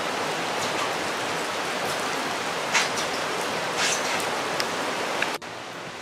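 Heavy rain on the workshop roof, a steady hiss with a few sharper drip-like ticks. Near the end it drops suddenly to a quieter hiss.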